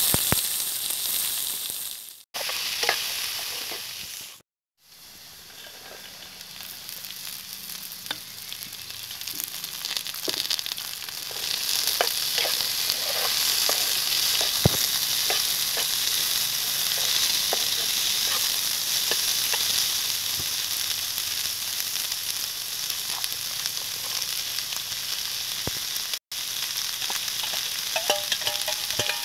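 Onions and chopped vegetables sizzling in hot oil in a frying pan, with a spoon clicking and scraping against the pan as they are stirred. A loud hiss as the onions go into the oil at the start, a few brief dropouts to silence, then a steady sizzle.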